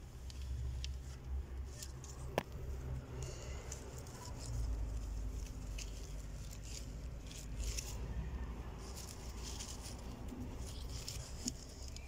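Hands working herb cuttings into soil: irregular rustling and crackling of leaves and earth, with one sharp click a couple of seconds in, over a low steady rumble.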